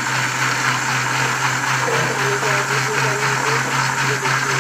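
Electric countertop blender motor running steadily, whirring as it purées a thick yogurt mixture with fresh coriander, mint and green chillies into raita.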